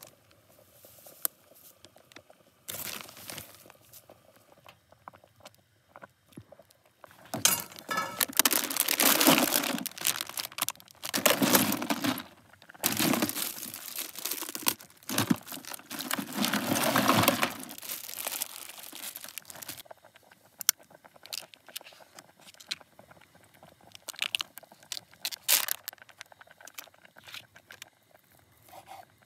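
Plastic food bags crinkling and rustling loudly in two long stretches as they are handled, then scattered small clicks and crinkles near the end.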